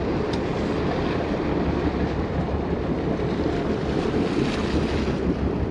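Steady rushing of wind on the microphone, with water washing along the side of a boat at sea.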